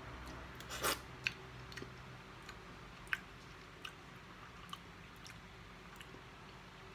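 A person quietly chewing and tasting a mouthful of sauce, with faint wet mouth clicks scattered through; the loudest is a sharp smack about a second in.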